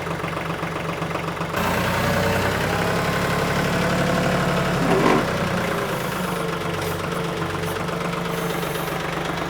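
TYM 2515H compact tractor's diesel engine running just after starting. About one and a half seconds in it speeds up and runs louder and steady, with a brief knock about five seconds in.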